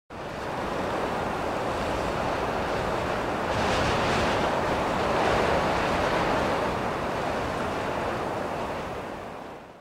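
Steady rushing noise that fades in at the start, swells a little in the middle and fades away near the end.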